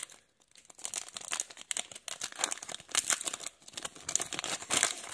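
Foil wrapper of a Pokémon booster pack crinkling as it is torn open by hand, an irregular crackle that starts about half a second in.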